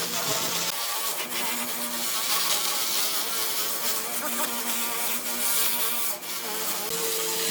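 Electric power tool running steadily on wood, its motor whine shifting in pitch slightly as it works.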